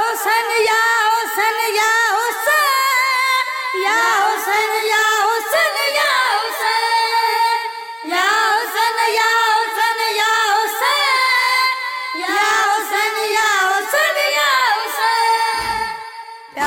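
A young singer's voice singing the wordless, melismatic opening of a noha, a Shia lament, in long wavering phrases over a steady held drone.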